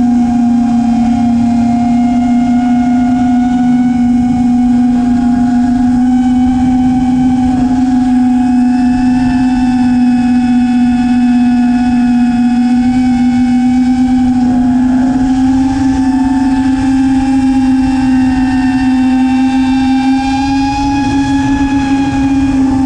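Four brushless motors of an FPV quadcopter whining steadily at cruising throttle. The pitch holds nearly level and rises slightly near the end. Wind buffets the onboard microphone with a low rumble.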